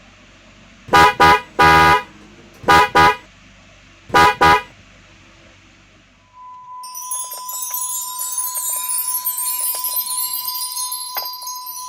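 Jeep Wrangler JK Rubicon's horn sounding in short honks, three, then two, then two, as it is tested after the fix for a dead horn. From about six seconds in, music with chimes and a steady high tone takes over.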